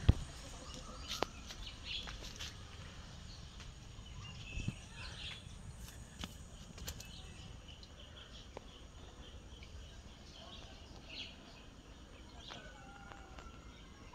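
Quiet outdoor garden ambience: a steady low background hiss with scattered short bird chirps and calls, and a few sharp knocks of the phone being handled while moving through plants, the loudest right at the start.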